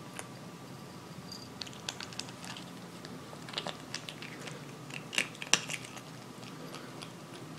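Kitten crunching dry kibble: irregular sharp crunches in bunches, the loudest a little past the middle.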